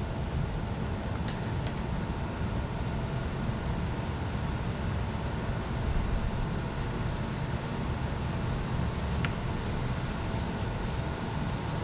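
Steady low rumble of background noise with a faint hum, and a few faint sharp metallic clicks of hand tools working on a bicycle's rear axle hardware.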